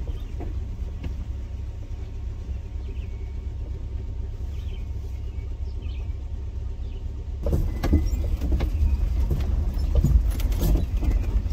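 A vehicle driving, with a steady low rumble of engine and road. About seven and a half seconds in it grows louder, with light rattles and knocks.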